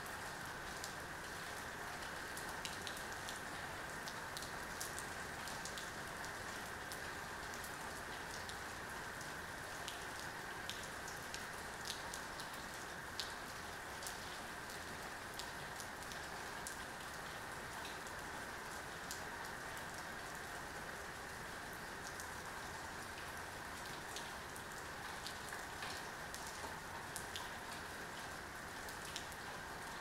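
Heavy rain falling steadily on wet pavement and grass: a constant even hiss dotted with many sharp individual drop ticks.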